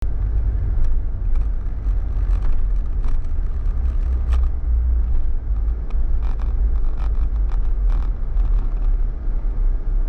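Vehicle driving at low speed: steady low rumble of engine and road noise, with a few faint ticks and rattles.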